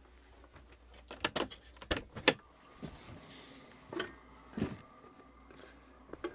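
Camper door latch clicking and the door being opened, a quick series of sharp clicks and knocks, followed by two heavier thumps of footsteps stepping down onto dirt ground.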